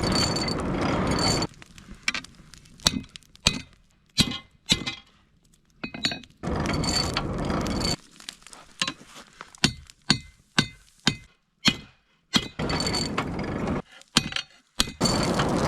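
Hand-cranked forge blower whirring in spells of a second or two with a thin high whine, alternating with runs of sharp metallic hammer strikes on steel.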